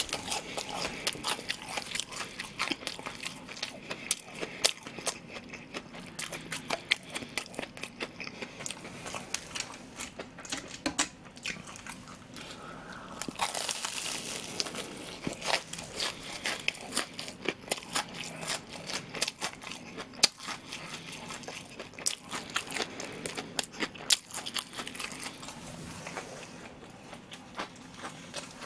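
Biting and chewing crispy deep-fried breaded pork cutlet (donkatsu) close to the microphone, the fried crust giving many sharp crunches.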